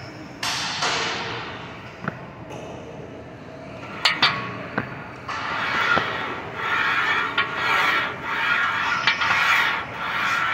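Smith machine during a set of seated overhead presses: a few sharp metallic clicks and clinks from the bar and its guide rails, over a hiss that in the second half comes as short, evenly repeated bursts.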